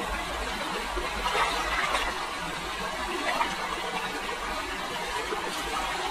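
Shallow stream water running, with a few splashes about a second and a half in and again near the middle as a person wades and dips a woven bamboo sieve into the water.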